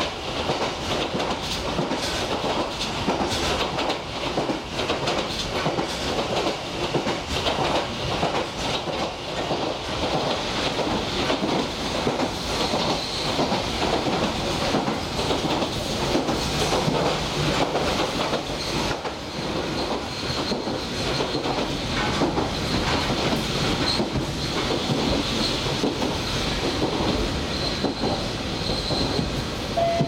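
Toyama Chihō Railway electric train running at speed, heard from inside the passenger car: continuous running rumble with wheels clicking over rail joints. A faint high whine comes in about a third of the way through.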